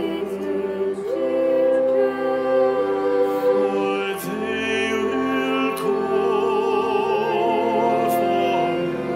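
Girls' voices singing a slow, sad song in parts, with long held notes and vibrato, accompanied by viola and cello.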